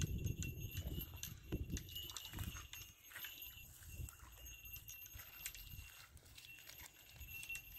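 Wind buffeting the microphone, dying down about a second in, with faint scattered clicks and crackles through the rest.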